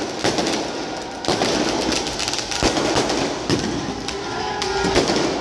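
Many fireworks going off at once: aerial rockets bursting, with a fast, overlapping run of sharp bangs and crackles.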